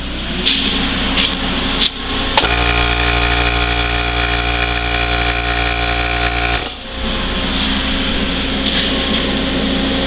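Everlast PowerPlasma 60 plasma cutter firing when its trigger terminals are bridged by a jumper wire: a click about two and a half seconds in, then a steady multi-tone buzzing hum for about four seconds that cuts off suddenly. A steady machine noise runs underneath.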